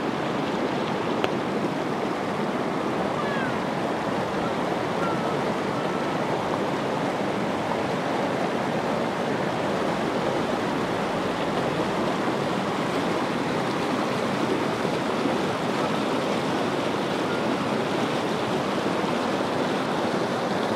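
Shallow, rocky river rushing over stones and boulders in white riffles, a steady, even rush of water.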